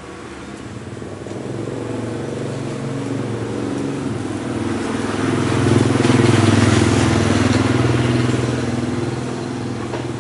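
A motor vehicle engine passing close by, growing louder to a peak about six to eight seconds in and then fading.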